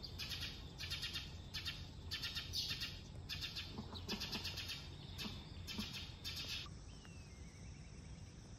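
Rapidly repeated, buzzy trilled animal calls, each under half a second long, about two a second. They stop about seven seconds in, leaving a faint steady insect-like hiss.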